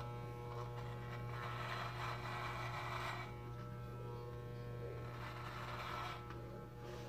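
Electric hair clippers buzzing steadily while shaving off a long, thick beard. The blades rasp louder as they cut into the hair, about one and a half seconds in and again about five seconds in.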